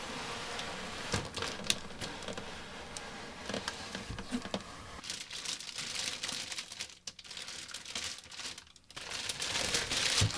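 Plastic wrap crinkling and rustling, with cardboard scraping and scattered light clicks and knocks, as a boxed toy claw machine is slid out of its box and unwrapped. The crinkling is loudest about five seconds in and again near the end.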